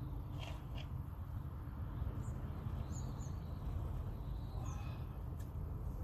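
Steady low rumble of wind buffeting the microphone on an open shoreline, with a few faint, short, high bird chirps.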